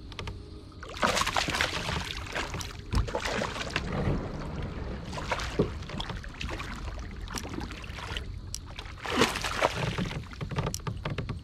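Water splashing and sloshing against a kayak in several bursts, loudest about a second in and again near the end, with scattered sharp clicks and knocks.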